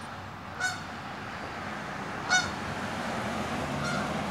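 A goose honking: two short, loud honks a little under two seconds apart, and a fainter call near the end, over a steady low background hum.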